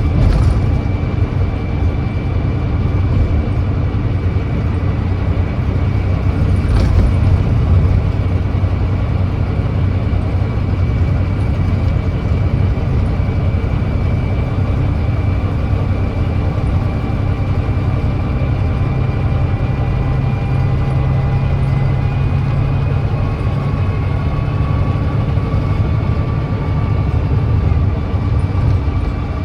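Volvo B9TL bus's Volvo D9B 9.3-litre diesel engine running steadily on the move, a bus with an exhaust leak. A faint whine rises slowly in pitch over the last several seconds, and there are two short knocks, one right at the start and one about seven seconds in.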